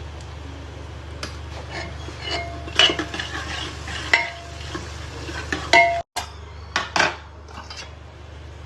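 A metal spoon stirring and scraping in a metal cooking pot, with sharp, ringing clinks of metal on metal over a low steady hum. The sound cuts out for a moment about six seconds in.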